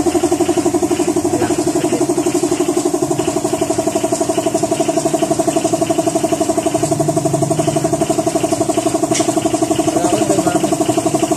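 A machine runs steadily in the workshop, with an even, fast pulse of about ten beats a second.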